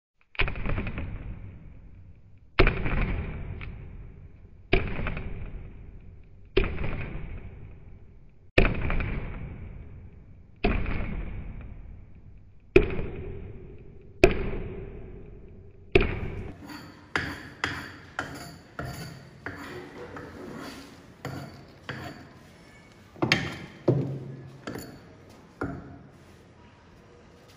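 Heavy wooden club pounding on a thick wooden chopping block and crushing small green fruits: eight hard strikes about two seconds apart, each dying away slowly with a faint ring. In the second half come quicker, lighter knocks, with a few harder strikes near the end.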